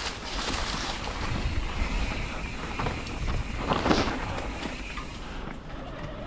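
Wind buffeting the microphone over the steady rolling and crunching of mountain bike tyres on a dirt trail covered in dry leaves and gravel. Louder crunches come now and then, the loudest about four seconds in.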